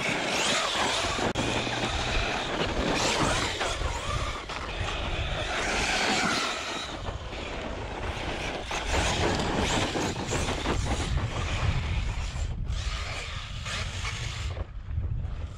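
Large RC buggy driving hard across loose gravel and sand, its tires churning and spraying grit in swells as it speeds up and turns, with wind noise on the microphone.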